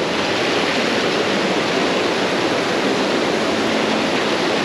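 Shallow river water rushing steadily over a low weir and rocks, close by.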